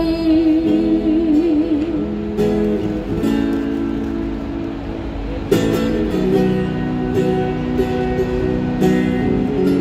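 A woman singing live with a strummed acoustic guitar. Near the start she holds one long note with vibrato, and after it the guitar chords carry on.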